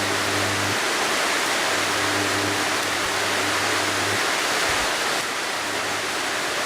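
Microwave oven transformer humming low as its output burns a screwdriver grounded into wet earth, the hum breaking off and returning a few times, under a steady loud hiss.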